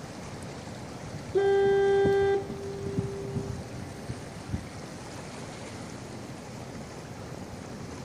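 Harbor fog horn sounding one steady, single-pitched blast of about a second, which lingers faintly for about another second after it stops, over a steady background hiss.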